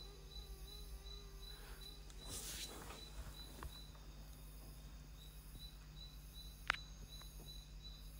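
Quiet room tone with a steady low hum and a thin high whine, a short hiss of noise about two and a half seconds in, and a single sharp click near the end, the loudest sound, as glass beakers are handled on the bench.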